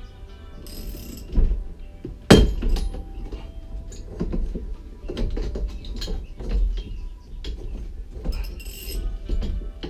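Ratchet wrench clicking as it turns the screw of a seven-ton steering wheel puller on a corroded, stuck boat steering wheel, with irregular metal clinks and knocks. One sharp crack comes about two seconds in.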